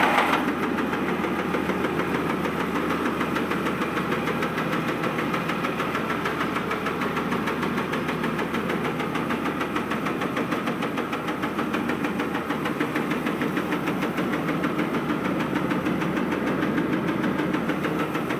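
Tractor-powered rice mill running steadily: the tractor's engine drives the huller's belts and pulleys, giving a loud, unbroken mechanical din with a fast, fine rattle.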